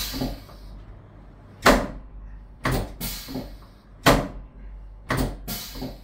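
Segmented chiropractic drop table (Thompson technique) clacking as its drop section falls under quick hand thrusts to the lower back: about six sharp clacks, some in quick pairs.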